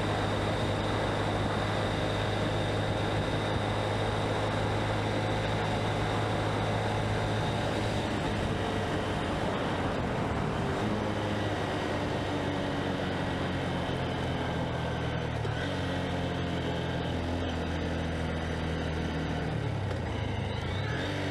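Honda CB125F's single-cylinder four-stroke engine running at road speed, with wind rushing over the body-worn microphone. The engine note is steady at first, drops about halfway through, then steps up and down several times toward the end.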